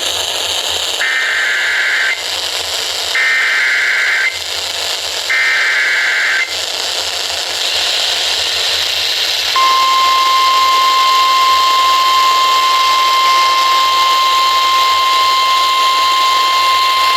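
Emergency Alert System SAME header: three warbling digital data bursts, each about a second long, over a hissing NOAA Weather Radio signal. About ten seconds in, the steady single-pitch 1050 Hz warning alarm tone starts and holds. Together they mark the start of a new alert, here a severe thunderstorm warning.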